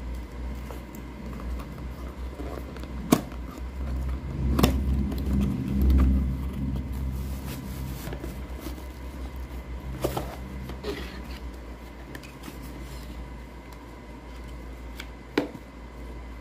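Cardboard headphone box and packaging handled by hand: rubbing and rustling with four sharp clicks or taps, over a steady low rumble that swells for a couple of seconds near the start.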